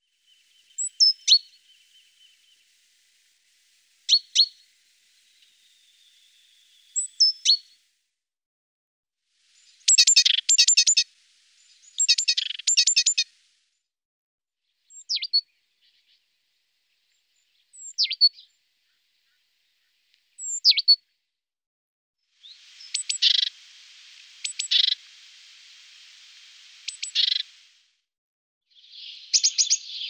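Small songbirds calling: scattered single sharp chirps, two rapid chattering trills about ten and twelve seconds in, and a longer hissing, pulsed call near the end.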